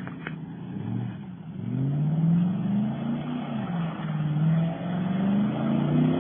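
Chevrolet Silverado 1500 pickup engine revving hard under wheelspin as the truck spins donuts on dirt, its pitch rising and falling again and again.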